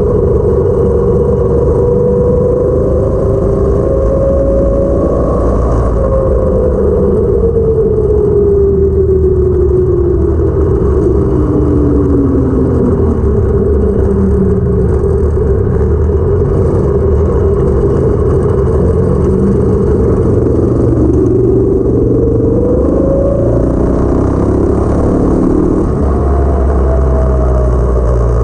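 Go kart's 212cc single-cylinder engine with a stage 1 kit running under load while driving. The engine note drops slowly as the kart slows through the middle of the clip, then climbs again as it speeds back up.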